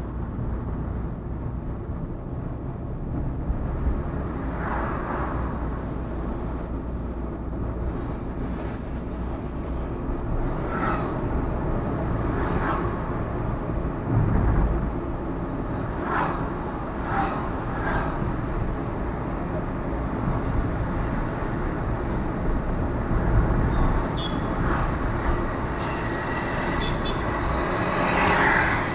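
Steady low engine and road rumble of a car driving. Short, sharp higher sounds from the surrounding traffic break in several times, from about five seconds in to eighteen, and again near the end.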